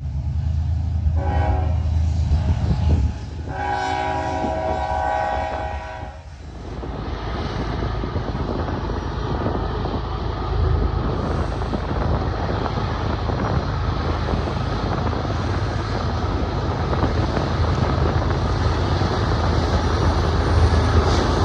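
Freight locomotive horn sounding two blasts, a short one about a second in and a longer one about three and a half seconds in, over the low rumble of diesel locomotives. After the horn, a steady low rumble with a rushing noise carries on.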